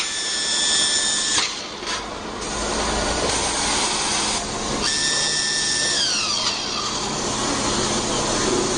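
Polyurethane pouring machine's mixing head: a high motor whine runs for about a second and a half and stops, then comes back about five seconds in and winds down in pitch, over a steady hiss.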